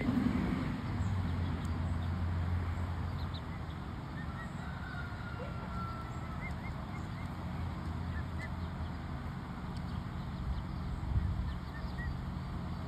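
Farmyard birds: faint short chirps scattered throughout and one drawn-out whistle about five seconds in, over a steady low hum.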